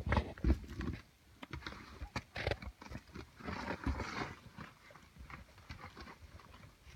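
Boots scuffing and knocking on granite and clothing scraping against the rock walls as a person squeezes up a narrow rock crack: a string of irregular knocks, heaviest at the start, with two longer rustling scrapes about two and four seconds in.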